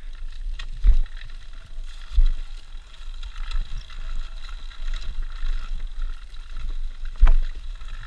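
Enduro motorcycle ridden over rough ground: a low rumble with a few knocks from bumps, the loudest about seven seconds in.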